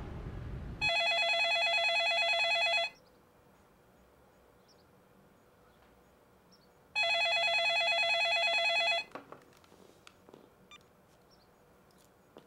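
Electronic telephone ringer ringing twice, each ring a fast, pulsing trill of about two seconds, the rings about six seconds apart. A few faint clicks follow the second ring.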